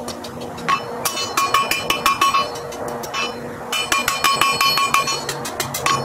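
Blacksmith's hand hammer striking a red-hot iron bar on a steel anvil in quick runs of blows, each ringing clearly off the anvil, with a pause of about a second and a half in the middle. The footage plays at double speed.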